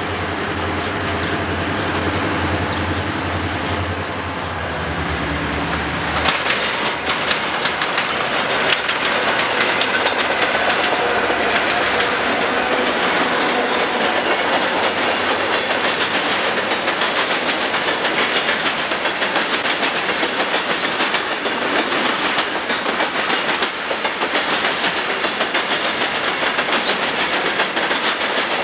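Illinois Central diesel freight train approaching and passing close by. For the first few seconds the locomotives' engines drone steadily as they come on. About six seconds in they reach the crossing and a loud rumble of wheels and freight cars takes over, full of sharp clacking as the wheels cross the diamond.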